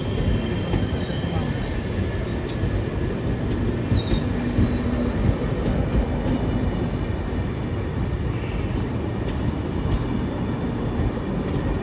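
A train running past on the rails: a steady low rumble of wheels and cars, with faint thin high wheel squeals over it.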